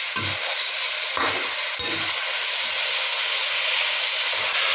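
Chicken pieces frying in oil in a karahi, a steady sizzle, with a few brief knocks of a metal spoon stirring against the pan in the first two seconds.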